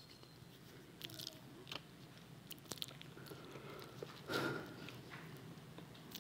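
Faint, scattered small clicks and crackles close to the pulpit microphone, with a slightly louder soft noise about four seconds in.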